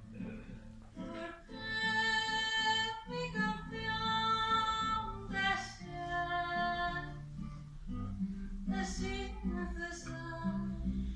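Music: guitar accompaniment with a melody of long held notes over it.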